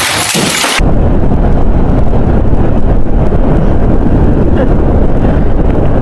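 A loud hiss cuts off suddenly under a second in. It gives way to a motorcycle riding along at speed, its engine running steadily under wind rushing over the microphone.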